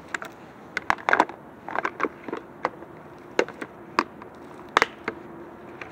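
A series of sharp, irregular clicks and cracks, about a dozen in all, loudest near the middle and just before the end, with a faint steady hum coming in about halfway through.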